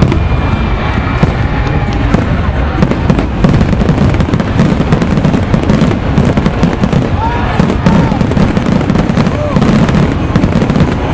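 Fireworks going off in rapid succession, a dense, continuous barrage of booms and crackling bangs, with crowd voices underneath.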